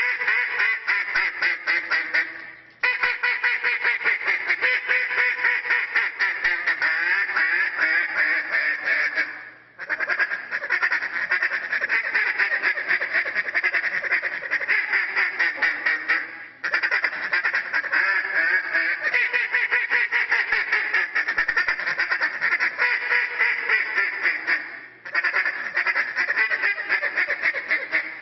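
Hand-held duck call blown in competition live-duck style, mimicking a mallard hen: fast, continuous runs of quacking notes. Each run lasts several seconds and is broken by brief pauses for breath.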